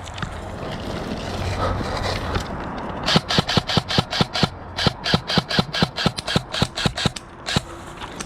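Airsoft gun firing a rapid string of shots, about five a second, starting about three seconds in with a brief pause midway and stopping shortly before the end. Before the shots, a steady rustling of movement.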